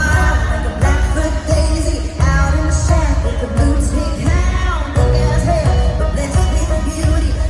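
Live country-pop band music with a woman singing lead over it.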